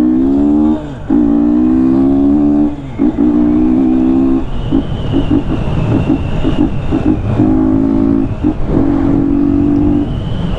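2020 Yamaha Fazer 250's single-cylinder engine, run without its air filter, accelerating hard. Its pitch rises, dips for a gear change about a second in, and rises again. After a second dip near three seconds in it holds steadier, going uneven and choppy for a few seconds in the middle.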